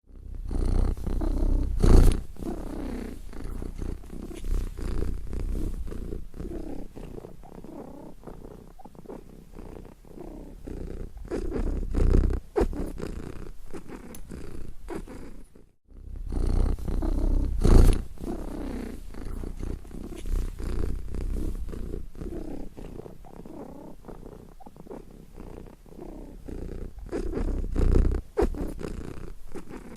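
Domestic cat purring steadily, with a couple of louder knocks from handling or movement. The same recording plays twice, with a brief gap about sixteen seconds in.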